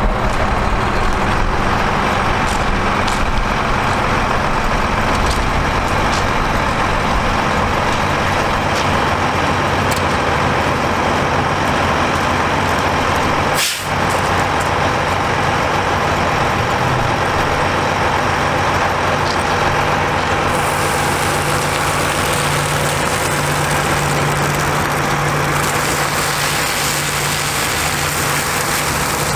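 Mack MP7 diesel engine of a water truck running steadily while it drives the PTO water pump, with a hiss of spraying water over it. The sound briefly drops out about halfway through, and about two-thirds in a brighter hiss of water from the hose nozzle joins.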